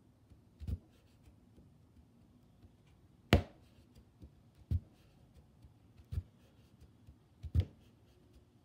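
Oxford punch needle being pushed down through taut monk's cloth on a frame and lifted again, stitch after stitch. Each punch gives a short, soft thump; there are about five, most about a second and a half apart, and the one a little over three seconds in is the sharpest.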